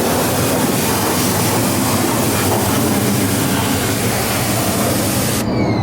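Loud, steady rushing noise of a machine running, with a low hum underneath; the high hiss drops away abruptly near the end.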